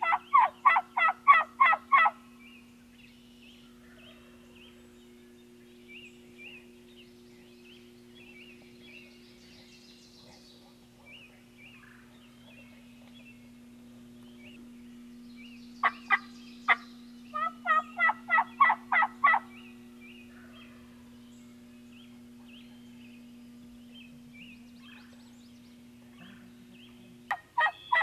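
Wild turkey gobbler gobbling twice, each gobble a rapid rattling run of about eight notes: once at the start and again about two-thirds through, just after three short sharp notes. Faint songbird chirps come in between, over a steady low hum.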